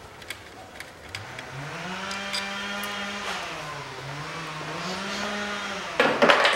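A motor hums, its pitch rising and falling a few times, then a loud, short burst of noise comes near the end.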